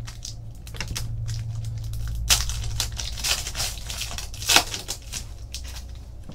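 Foil trading-card pack wrapper crinkling and being torn open, with sharp crackles about two and four and a half seconds in.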